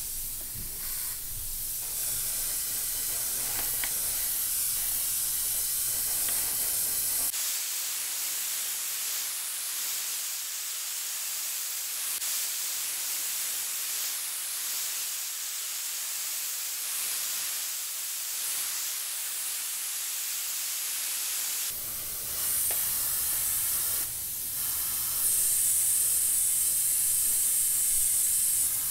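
Airbrush hissing steadily as it sprays paint onto a small toy part, with the hiss growing louder near the end. A low hum underneath drops away about seven seconds in and returns in the last third.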